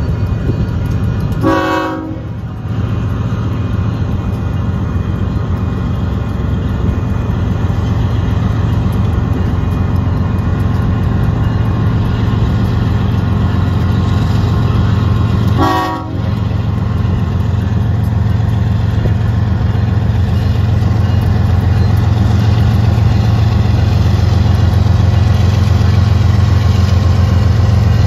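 Diesel freight locomotives running with a steady low rumble that grows a little louder in the second half as a Kansas City Southern-led freight train reaches the grade crossing. Two short horn sounds come through, about two seconds in and again about sixteen seconds in.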